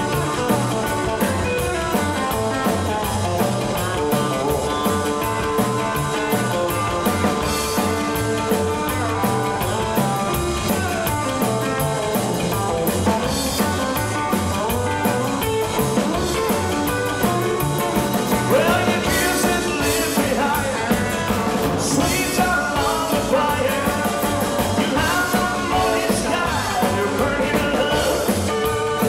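Live rock 'n' roll band playing with a steady beat: upright double bass, drum kit and electric guitar, with a male singer's vocals over it in parts.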